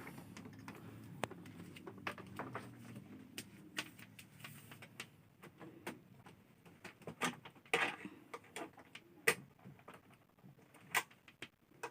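Handling noise: scattered clicks and light knocks of objects being moved about, with a faint low hum in the first few seconds.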